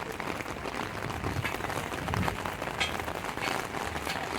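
Heavy rain falling: a steady hiss with many small drop patters.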